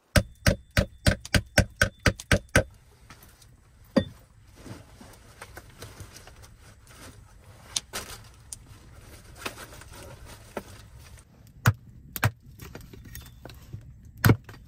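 A quick run of about ten sharp knocks in the first couple of seconds, then quieter rustling and clicks. Near the end a few single heavy wooden strikes come as a blade is batoned down through kindling on a chopping stump.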